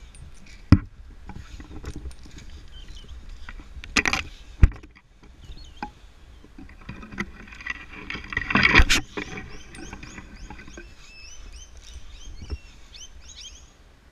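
A tree climber's rope gear working during an SRT ascent: sharp knocks and clatter of the hand ascender and metal hardware on the rope, several of them about 1, 4 and 9 seconds in, with a scuffle of handling near the end of that. Birds chirp in the background through the second half.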